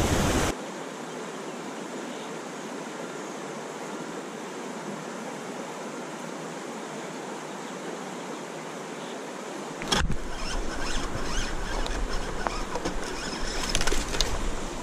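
Steady hiss of rushing river water. About ten seconds in there is a sharp click, then rougher, rumbling water noise with scattered small knocks.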